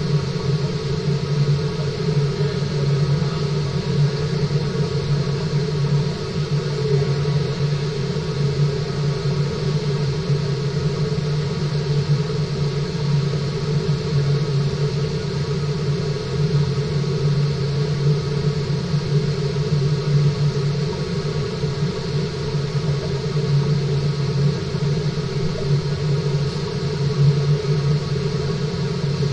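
Steady low hum with an even hiss of water circulating through a fish-farm tank, heard underwater, with no change throughout.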